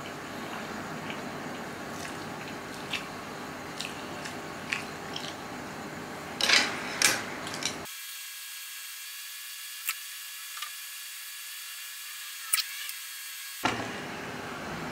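Eating sounds: scattered sharp clinks and scrapes of metal utensils against a frying pan of instant noodles, the loudest pair about six and a half seconds in, over a steady background hiss.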